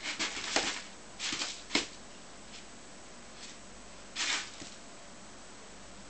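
Kitten scratching and digging in cat litter in a plastic litter box: several short scratching bursts in the first two seconds, and another about four seconds in.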